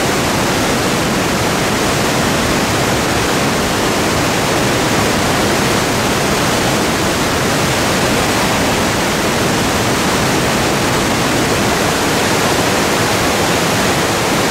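Cave stream in flood, muddy water rushing and churning over boulders at the cave entrance: a loud, steady rush of turbulent water. The stream runs like this only after heavy rain.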